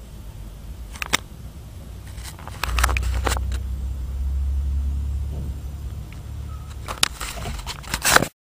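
Low vehicle engine and road rumble heard from inside a car, growing much louder about three seconds in and easing off after about six seconds, with scattered sharp clicks and knocks. No siren sounds. The sound cuts off abruptly just before the end.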